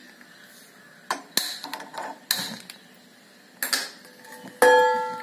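Metal kitchenware handled over a gas stove: a few sharp clicks and knocks, then a stainless steel vessel set down on the burner grate with a ringing clang near the end.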